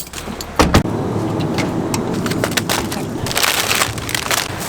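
A heavy thud about half a second in, like a car door shutting, then a steady car rumble scattered with crunching clicks.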